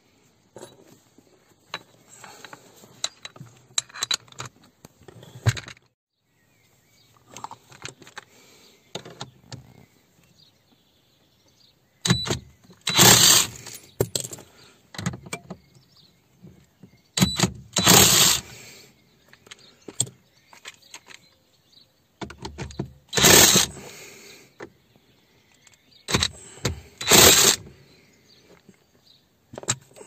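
A socket ratchet wrench clicking in bursts of about a second each, four times in the second half, as bolts on a car's steering column are turned. Before that come scattered clinks and rattles of metal tools and parts being handled.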